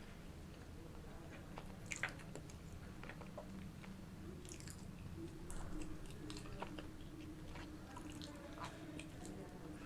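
Close-miked chewing of pizza, with crisp crackling clicks as the crust is bitten and crushed. The sharpest snap comes about two seconds in. A low steady hum runs underneath.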